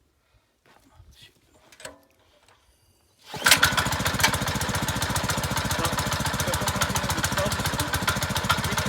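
Motor hoe's small petrol engine starting on choke: a few faint handling sounds, then the engine catches suddenly about three seconds in and runs on steadily with a fast, even firing pulse.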